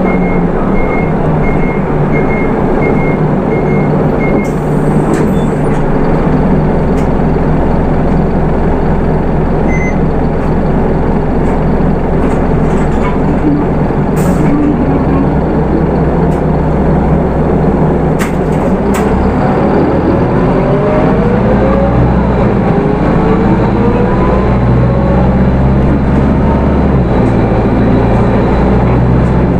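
Hino Rainbow II midibus heard from inside, its 4HK1 diesel engine running with a steady low drone. A short high beep repeats about twice a second for the first few seconds. From about two-thirds of the way through, a whine from the engine and automatic transmission rises as the bus accelerates.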